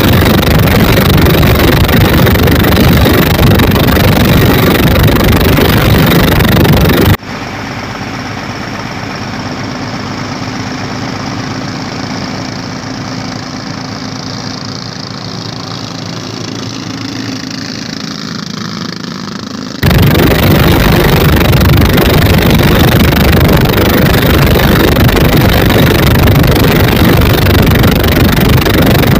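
Twin Dompeng single-cylinder diesel engines driving a wooden boat at speed, loud and dense with wind buffeting the microphone. About seven seconds in the sound cuts abruptly to a quieter, steadier engine note for roughly thirteen seconds, then jumps back to the loud running.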